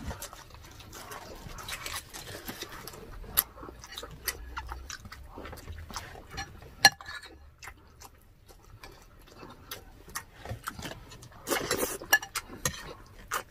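Close-miked chewing and crunching of crispy fried food, a run of small sharp crackles and clicks. Near the end comes a longer, denser noisy stretch, noodles being slurped.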